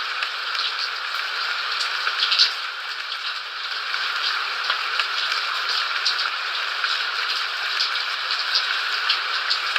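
Steady rain falling on a surface, an even hiss with many individual drops ticking sharply through it.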